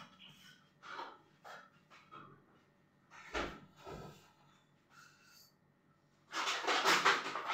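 Someone opening a refrigerator and handling things inside it. First a few soft knocks and thumps, two of them dull and low, then near the end a loud, noisy burst of rummaging lasting about a second.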